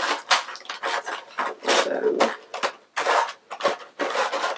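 Clear plastic packaging crinkling and crackling in irregular bursts as hands pull it open.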